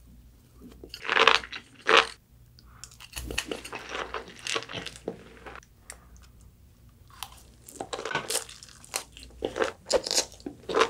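Close-miked eating sounds: bites and chewing of sushi and sea grapes. Crisp, crunchy bites come as irregular clicks, with the two loudest about one and two seconds in and more clusters of smaller ones later.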